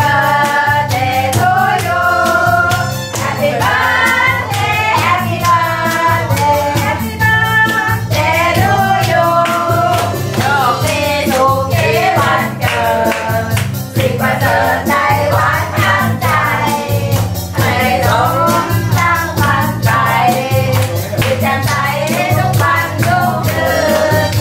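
A group of people singing a birthday song together, with steady rhythmic hand clapping.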